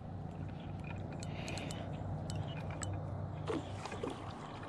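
Spinning reel being cranked to bring in a hooked carp: a low steady whir from the reel's gears with faint scattered ticks.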